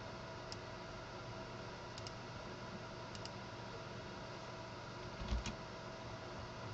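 A few faint computer keyboard and mouse clicks over a steady electrical hum, with a pair of clicks and a dull low knock about five seconds in.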